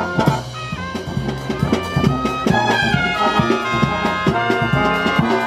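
Brass marching band playing a tune live, trumpets and trombones carrying the melody over a steady drum beat.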